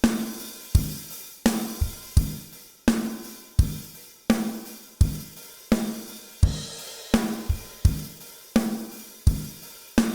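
Recorded acoustic drum kit playing a steady groove: kick and snare hits about every three-quarters of a second under hi-hat and cymbals. It plays back through an Avalon 747 EQ with a low-shelf bump and a gentle 32 kHz high-shelf lift.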